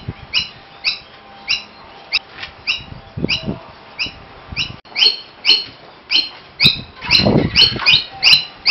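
Noisy miner giving a short, sharp call over and over, about twice a second, coming a little faster near the end. Some low knocks sound about three seconds in, and a brief low rumble about seven seconds in.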